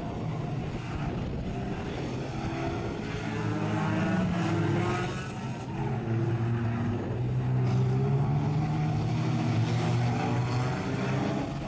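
Several banger-racing cars' engines running hard at once, their pitch rising and falling as they accelerate and lift around the track.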